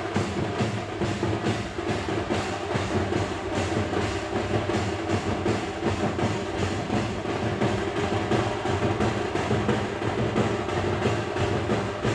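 Indian festive drums played in a fast, driving rhythm, dense drum strokes going on without a break.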